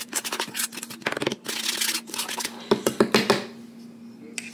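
A utensil stirring a marinade in a bowl, with quick irregular clicks and scrapes against the bowl that stop about three and a half seconds in. A steady low hum runs underneath.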